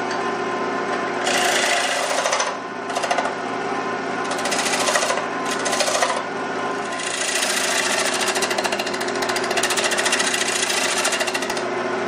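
A bowl gouge cutting a spinning wooden bowl on a wood lathe, over the steady hum of the lathe. There are several short cuts, then a longer continuous cut from about seven seconds in until shortly before the end.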